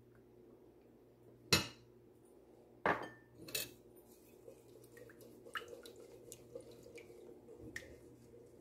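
Two sharp clinks of kitchen utensils set down against a plate, about a second and a half apart, then a wire whisk beating egg into milk in a bowl, its wires ticking lightly and irregularly against the bowl's side.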